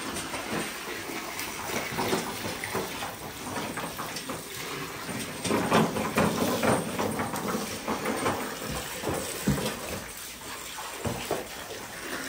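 Water from a garden hose spraying and splashing onto a wet concrete barn floor, a continuous splatter that grows louder for a couple of seconds around the middle.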